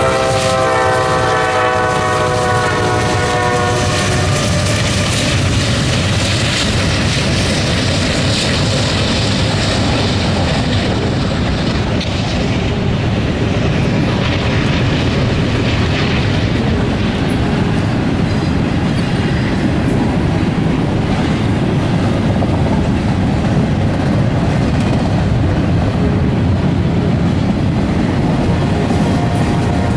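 A Norfolk Southern freight locomotive's air horn sounding a chord that ends about four seconds in. It is followed by the steady clatter of the wheels on the rails as a long intermodal train of container well cars rolls past.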